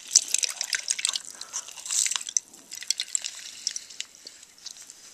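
Fresh lime juice dripping and trickling into a glass measuring cup as a lime half is pressed in a plastic hand reamer, with many small clicks and crackles.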